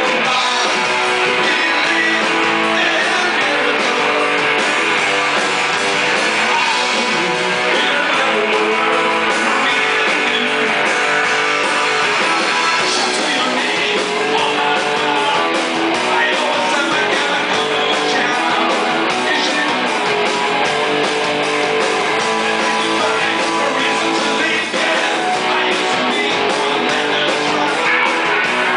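Live rock band playing: electric guitars, bass guitar and drums, with a man singing into the microphone. The band plays loud and unbroken.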